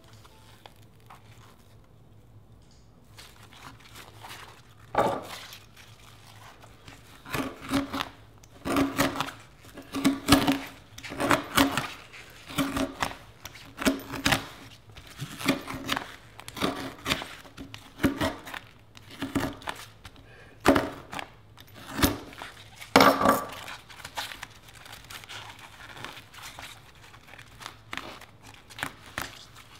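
Box cutter blade slashing again and again across a work glove's leather palm: about twenty sharp scraping strokes, roughly one a second, starting about five seconds in and thinning out after about twenty-four seconds.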